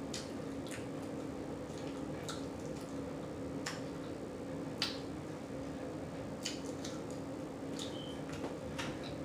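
Close-miked mouth smacking and chewing: irregular short, wet clicks, about one or two a second, over a faint steady hum.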